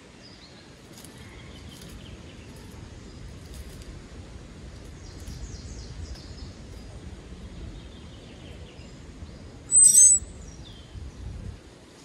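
Wild songbirds calling in woodland: thin, high notes scattered throughout, with one loud, sharp high call about ten seconds in, followed by a short falling note.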